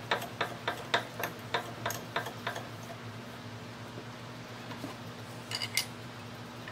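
A run of light metallic clicks, about three or four a second, fading out after a couple of seconds, as the 5C collet block is clamped up in the milling machine vise, over a steady low electrical hum. A short cluster of clicks comes near the end as hands go to the mill's drill chuck.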